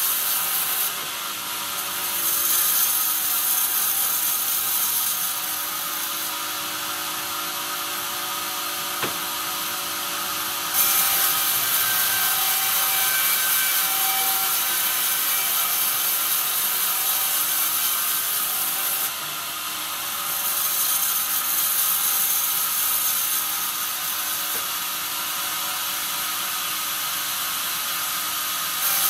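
Bandsaw blade cutting lengthwise through a pine beam on a sawmill carriage: a steady, hissing noise that steps louder and quieter several times, with a single sharp click about nine seconds in.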